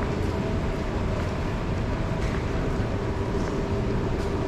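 Steady rumbling hum of an underground MRT station passageway, with a few faint held tones and the light ticks of footsteps on the tiled floor.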